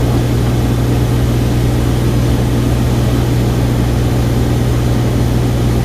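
Single-engine light airplane's piston engine and propeller droning steadily, a constant low hum with a noisy rush above it, unchanging throughout.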